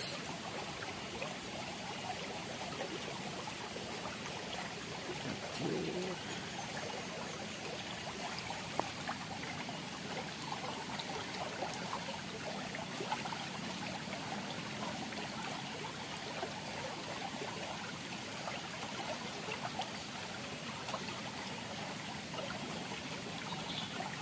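Water in a small irrigation channel flowing and trickling steadily, with a couple of faint clicks.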